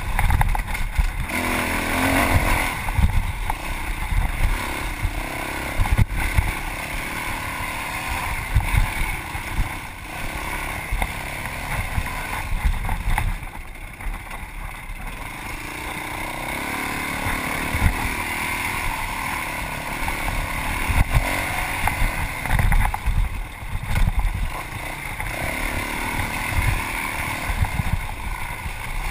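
Yamaha WR450F dirt bike's single-cylinder four-stroke engine being ridden hard, revving up and down, easing off briefly about halfway through, with an occasional knock from the rough trail.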